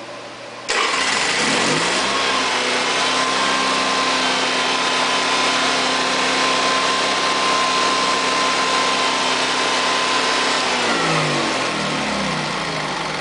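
Honda EV6010 generator's engine starting warm, catching at once and running steadily with a thin steady whine. About eleven seconds in, the engine note drops and settles, as the choke is taken off by hand.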